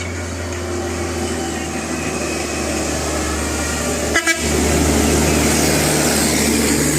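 A large bus's diesel engine running steadily, growing louder just after the midpoint as it draws near, with a short double horn toot about four seconds in.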